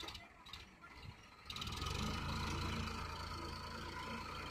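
Farmtrac 60 tractor's diesel engine working hard under load as it drives through deep sand. Its steady, loud running sets in suddenly about a second and a half in, after a quieter start with a few clicks.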